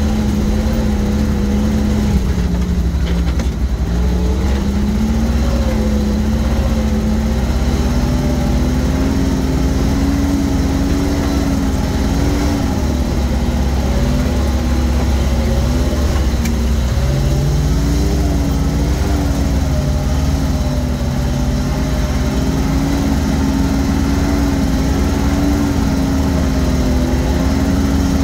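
GAZ-66 truck's engine running as it drives, heard from inside the cab, over a heavy low rumble. The engine speed drops a few seconds in, then climbs and holds steady, with a second brief dip and rise about two-thirds of the way through.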